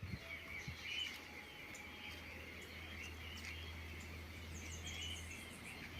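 Rural outdoor ambience: birds chirping and insects trilling, over a steady low hum. A brief burst of higher chirps comes about five seconds in.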